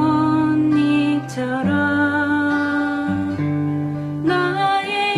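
Acoustic guitar playing a slow-rock accompaniment in an A-minor shape, capo on the third fret, with the bass note alternating between root and fifth. A voice sings long held notes over it.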